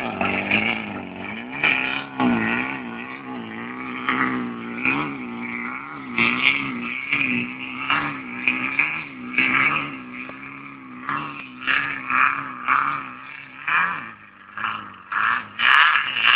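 Off-road race vehicle's engine revving up and down again and again as it drives away over a rutted dirt track, the pitch rising and falling about once a second. A louder rush of noise comes near the end.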